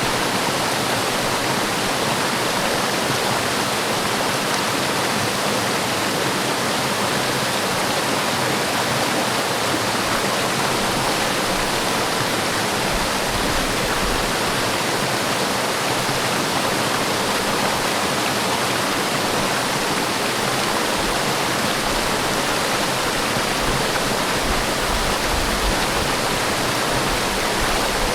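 Forest waterfall: a steady, even rush of falling water with no changes.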